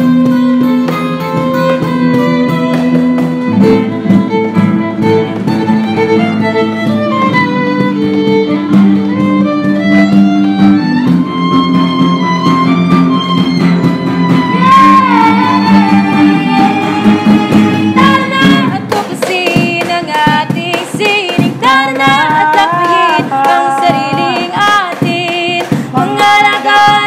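A small acoustic band playing: a violin melody over acoustic and electric guitar chords, with a steady cajón beat. About two-thirds of the way through, the low held chords drop away and the melody turns busier and more wavering.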